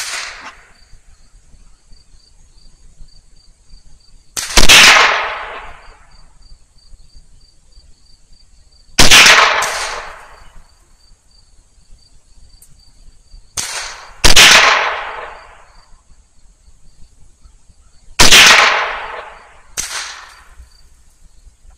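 Smith & Wesson M&P 15-22 semi-automatic .22 rifle firing single shots every four to five seconds, each loud crack trailing off with an echo, some followed by a fainter second crack. Insects chirr steadily behind.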